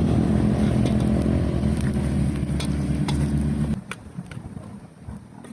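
A motor or engine running steadily with a low hum, cutting off abruptly a little over halfway through, followed by a few faint clicks.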